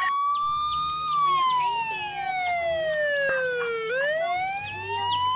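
A siren-like tone with overtones gliding in pitch: it rises a little, falls slowly for about three seconds, then rises again near the end. Short chirping sweeps sound above it over a steady low drone.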